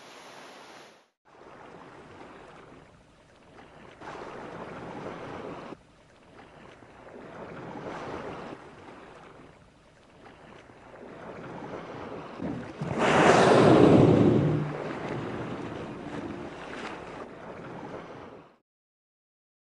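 Ocean water noise, a rushing sea surface with some wind, in several separate stretches that start and stop abruptly. A louder surge of rushing water comes about thirteen seconds in and lasts around a second and a half.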